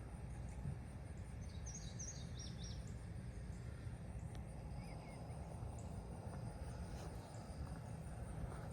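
Outdoor ambience: a steady low rumble of background noise, with a few short bird chirps about two seconds in and a faint steady high whine throughout.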